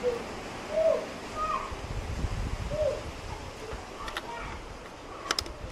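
A bird calling with a few short, low hooting coos and a couple of higher notes, followed by a single sharp click about five seconds in.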